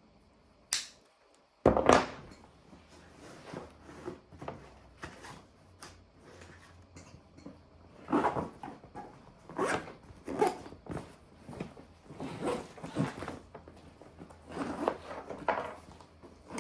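Small objects being handled and set down, with rummaging and rustling through a bag. There is a sharp click just under a second in and a loud knock a moment later, then bursts of rustling and clattering.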